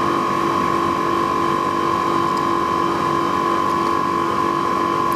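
Steady mechanical hum holding two even pitches, one high and one lower.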